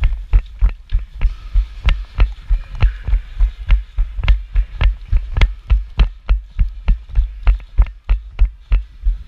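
Running footsteps: heavy, even footfalls about three a second, each with a sharp click or rattle of gear.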